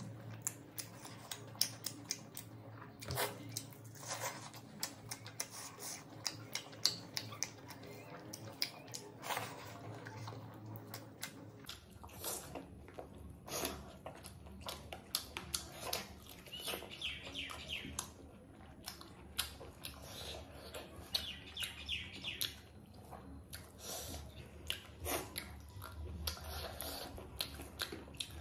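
Mouth sounds of eating a spicy chicken leg: chewing and wet lip-smacking, many short irregular smacks and clicks.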